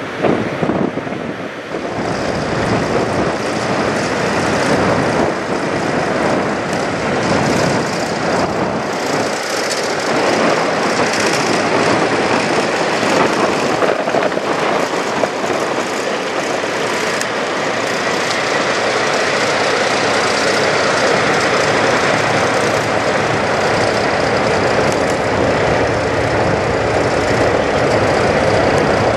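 Parked diesel semi-truck engine idling, a steady mechanical noise.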